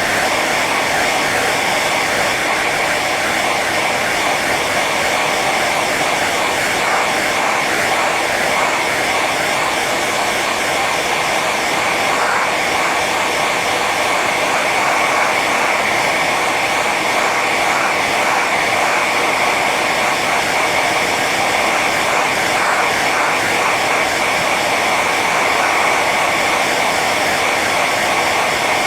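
Hair dryer running steadily on its high setting: a constant rush of blown air with a steady whine from the motor and fan.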